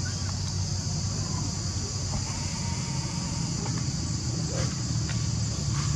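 Steady high-pitched drone of insects, crickets or cicadas, over a low steady rumble.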